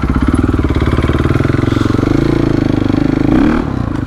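KTM supermoto motorcycle engine running at a low, steady pace under the rider, its revs rising a little past the middle and dropping back near the end.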